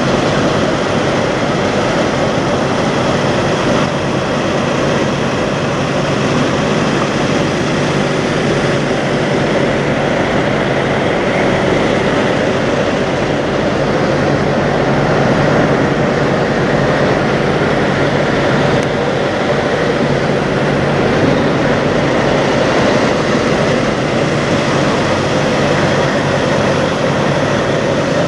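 Diesel semi-truck engines idling, a steady, even rumble with a constant low hum.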